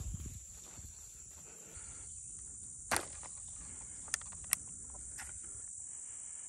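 Steady high-pitched insect drone, with three sharp plastic clicks about three, four and four and a half seconds in as a trail camera's case latch is worked open.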